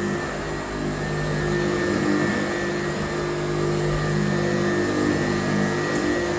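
1940s Hoover Model 26 upright vacuum cleaner running steadily, its motor giving a constant hum.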